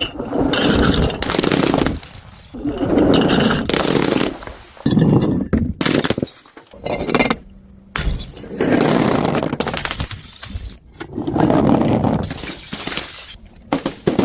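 Glass bottles shattering one after another: a run of crashes, each about a second long, with a new one every second or two.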